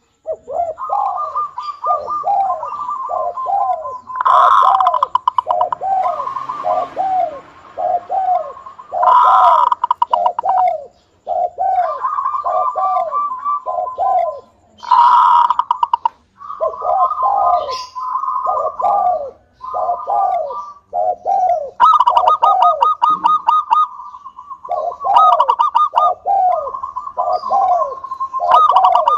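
Local zebra dove (perkutut) singing: a rapid string of short cooing notes, several a second, over a rolling trill, with a louder, fuller burst every few seconds.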